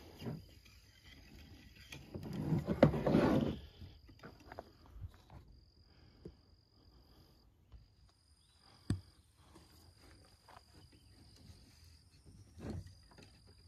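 Cleaning pads pushed through a .410 shotgun barrel on a rod: a rough rasping push about two seconds in, then a few light clicks and knocks. Insects trill steadily and faintly throughout.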